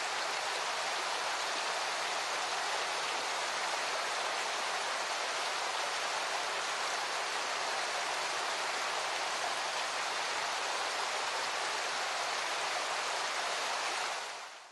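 Steady rushing water that fades out near the end.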